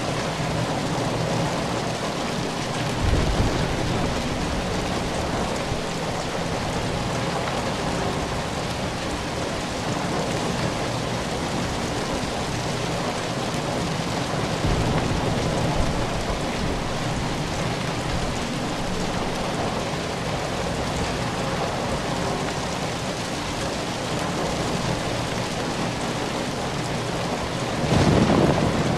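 Steady heavy rain falling, a continuous even hiss, with low rumbles of thunder about three seconds in and again near the end.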